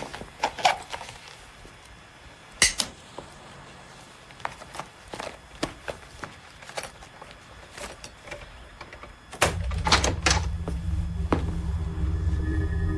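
Scattered clicks and light knocks of a house door's key, lock and knob being worked as the door is opened. About two-thirds of the way through, a low steady drone of background score comes in and becomes the loudest sound, with held notes joining near the end.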